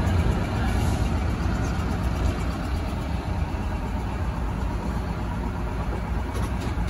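Steady low rumble of city traffic and vehicles close alongside, with faint voices.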